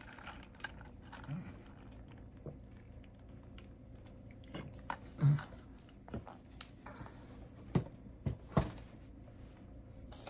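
Someone sipping from a teacup: quiet scattered clicks and taps of the cup and of handling, a short low swallow-like sound about five seconds in, and a few sharper clicks about eight seconds in.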